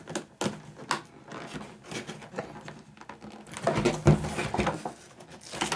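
A plastic clamshell blister pack with cardboard backing being handled: scattered crinkles and clicks of stiff plastic, with a louder knock about four seconds in as the package goes down flat on the table.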